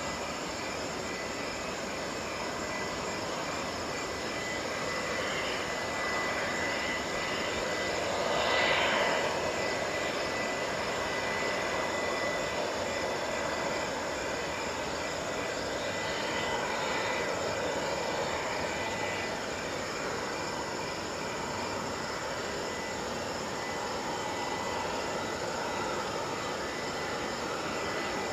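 Jet engines of a Boeing 787-9 Dreamliner moving along the runway: a steady rumble with a thin high whine, swelling briefly about eight seconds in.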